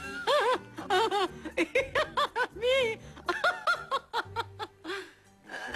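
A woman laughing in a run of short giggles, a flattered laugh at a compliment, dying away near the end.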